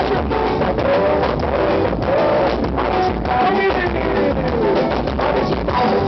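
Band music with guitar and drums, playing steadily.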